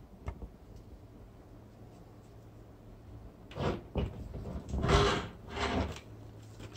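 A light click as the button of a digital kitchen scale is pressed, followed a few seconds later by several short rustling, clattering handling noises, the loudest about five seconds in.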